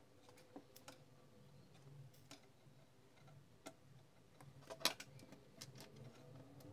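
Scattered light clicks and ticks from a small circuit board and heatsink being handled and soldered on a cutting mat, with one much louder click about five seconds in.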